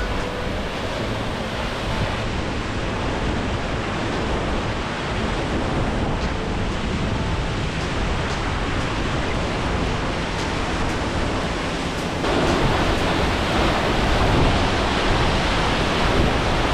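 Catarata del Toro waterfall pouring into its pool: a loud, steady rushing roar. It gets louder and brighter about twelve seconds in.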